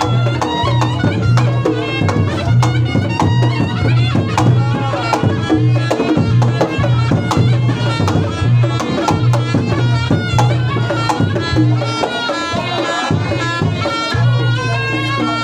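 Reog Ponorogo gamelan accompaniment: a slompret reed trumpet plays a wavering, nasal melody over fast kendang drumming and a steady pulse of low struck gongs.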